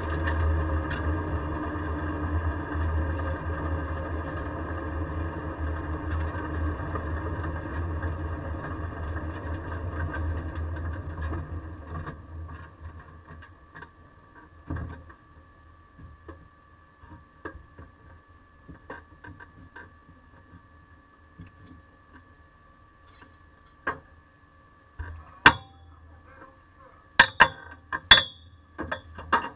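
LSX V8 of an F-body Camaro running at low speed, heard from inside the cabin; its sound dies away about twelve seconds in. After that there is a faint steady high whine, and near the end a series of sharp clicks and knocks.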